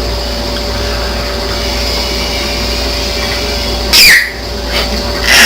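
A baby's screechy 'monster' vocal sound: a loud high squeal sliding down in pitch about four seconds in, and another loud screech starting near the end, over a steady background hum.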